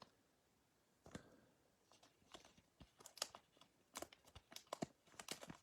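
Faint crackling and clicking of stiff chromium trading cards being handled and shuffled, in a quick irregular run of small snaps that grows busier in the second half.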